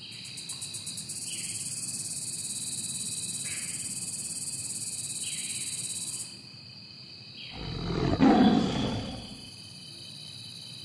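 Insects, crickets by the sound of them, trilling steadily, with a high buzzing trill that stops about six seconds in. About seven and a half seconds in, a louder rushing sound swells and fades over about two seconds.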